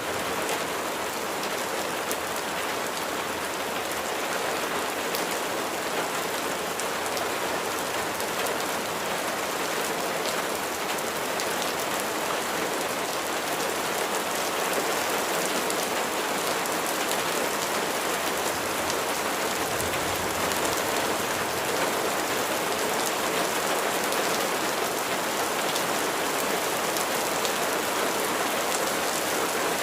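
Steady rain falling and pattering on a surface, a dense even hiss with many fine drop ticks, growing slightly louder in the second half.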